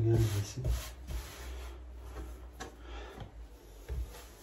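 Hands rolling and pressing lahmacun dough balls on a floured countertop: soft rubbing and scraping with a few light taps, and a brief low sound at the very start.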